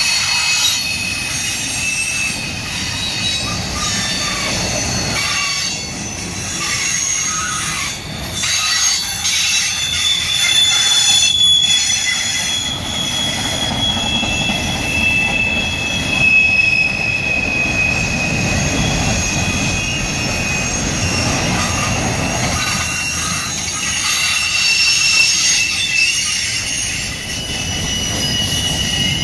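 Freight train cars rolling past, their steel wheels squealing in several high, slowly wavering tones over a steady low rumble, with a few clicks from the wheels on the rails.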